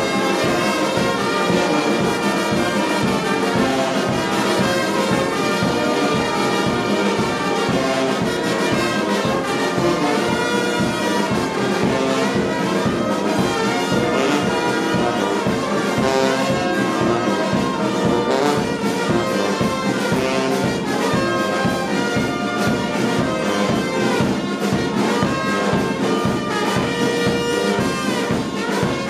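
A brass band playing without a break, trumpets and trombones sounding together.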